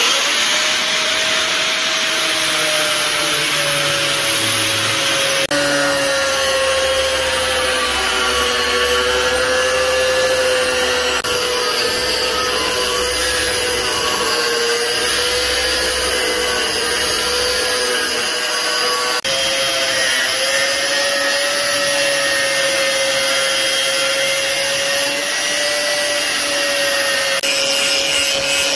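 Angle grinder with a thin cut-off disc cutting through a 5 mm steel saw blade. It makes a loud, steady whine that wavers slightly in pitch as the disc bites into the steel, over a hiss of grinding.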